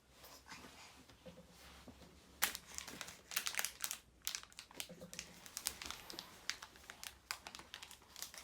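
Crinkling and crumpling of something being handled: quiet at first, then a run of quick, sharp crackles from about two and a half seconds in.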